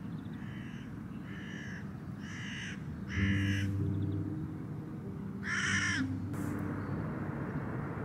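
A crow cawing five times, the calls growing louder, the last and loudest after a pause of about two seconds, over a steady low background hum.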